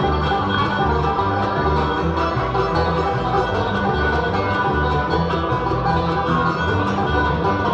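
Live bluegrass band playing: banjo, fiddle, mandolin, acoustic guitar and upright bass together, the bass notes marking a steady beat about twice a second.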